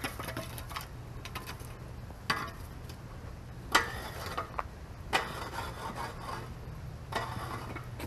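A rake scraping and dragging over bare soil and gravel in several separate strokes, with a low steady hum underneath.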